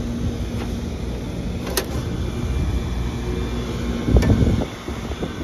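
York 460-volt heat pump condenser unit being switched on after new fuses: a sharp click about two seconds in, then a loud low thump about four seconds in as it starts, over a steady low rumble. It comes on okay without blowing the fuses.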